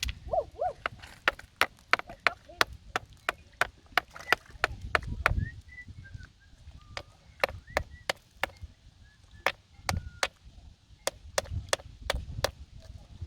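A hand-held stone knocking repeatedly against stone, sharp irregular clacks about three a second, as it is used to crack open mussel shells.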